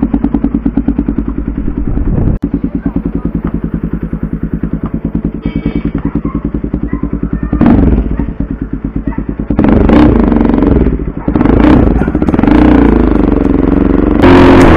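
Bajaj Pulsar NS200's single-cylinder four-stroke engine through an aftermarket SC Project exhaust, idling with rapid, even firing pulses. From about halfway through it rises in revs in several pulls as the bike rides off.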